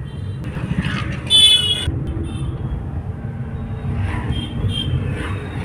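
Steady road rumble inside a moving car, with a vehicle horn honking loudly for about half a second a little over a second in, and fainter horns sounding twice later.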